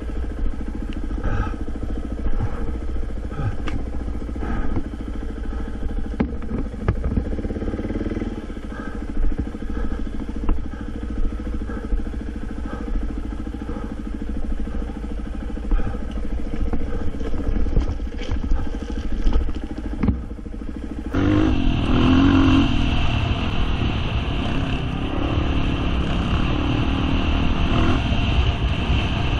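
Dirt bike engine running as the bike rides a rough forest trail, with scattered knocks and rattles. About 21 seconds in the sound cuts abruptly to a louder, more hissing ride noise from the engine at speed on an open dirt road.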